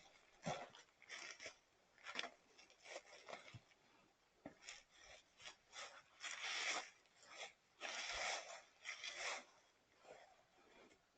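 Faint, irregular rustling and scraping: a string of short crunchy bursts, each from a fraction of a second to about a second long, with gaps between them.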